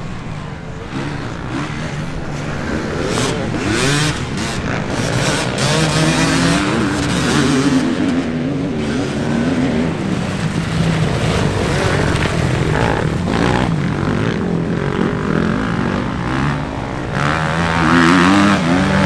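Motocross dirt bikes riding on the track, engines revving up and falling back again and again; the loudest comes close past near the end.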